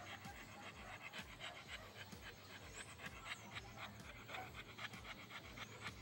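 Dog panting in quick, even breaths, several a second, worn out from a long spell of play.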